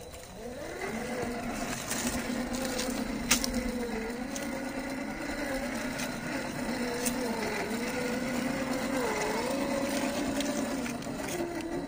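RC rock crawler's 550-size brushed electric motor and gear drivetrain whining under throttle, the pitch wavering up and down as the throttle and load change while it climbs over rock. A single sharp knock about three seconds in.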